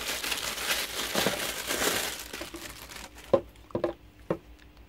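Plastic bag crinkling for about three seconds as a submersible aquarium pump is pulled out of it and unwrapped. Near the end come three light knocks as the pump is handled.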